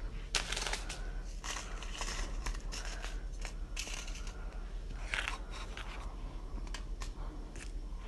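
Whole dry red chillies being handled and dropped into the mixer jar: irregular crisp crackling and rustling in many short bursts.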